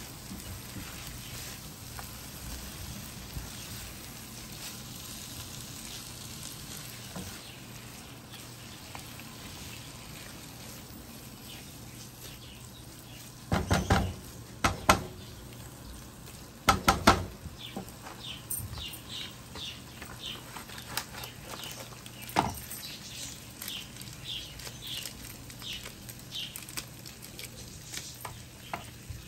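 Liver, onions and tomatoes sizzling in a frying pan while a silicone spatula stirs them, with a few louder knocks of the spatula on the pan about halfway through and scattered crackles later on.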